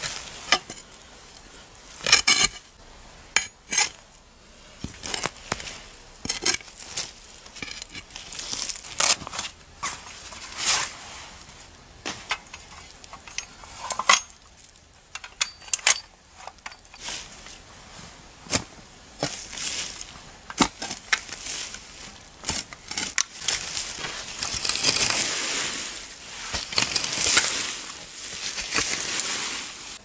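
Small folding shovel digging into leaf litter and soil: irregular scrapes, crunches and sharp clinks, with a run of longer scraping strokes near the end.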